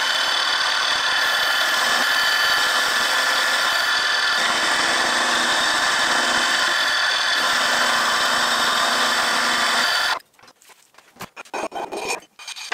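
End mill on a milling machine cutting the edge of a 10 mm mild steel plate: a steady, loud cutting noise with several whining tones running through it. It stops abruptly about ten seconds in, followed by a few short metallic knocks and clatters.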